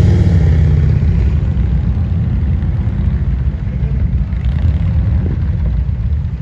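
Motorcycle engines running at idle close by, a steady low rumble that eases slightly after the first second.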